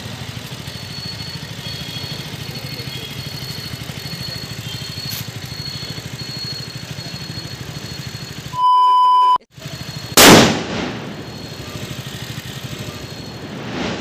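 A low steady rumble, then a short beep about nine seconds in, followed by two loud firecracker bangs on the road, one about ten seconds in and one at the very end.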